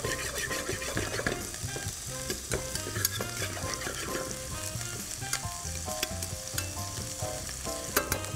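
Sliced portobello mushrooms sizzling in hot butter and oil in a frying pan as metal tongs turn them over. A few light clicks of the tongs against the pan come through the steady sizzle.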